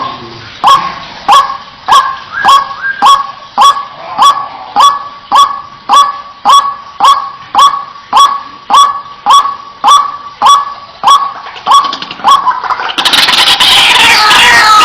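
White-breasted waterhen (ruak-ruak) calling: a loud, sharp note repeated evenly about one and a half times a second, then about 13 seconds in a dense chorus of overlapping, harsher calls takes over.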